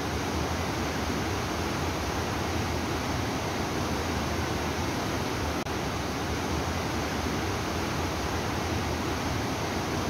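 Waterfall pouring into turbulent, churning rapids: a steady, even rush of falling water.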